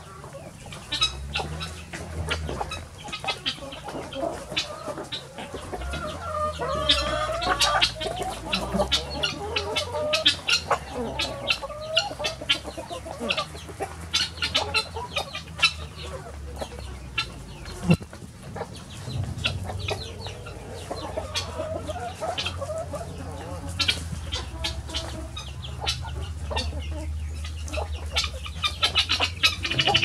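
A flock of hens clucking while they feed, with many quick clicks of beaks pecking at the ground.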